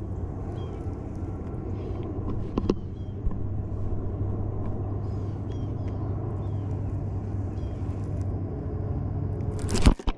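A steady low hum, with short high chirps every second or two over it and one loud thump just before the end.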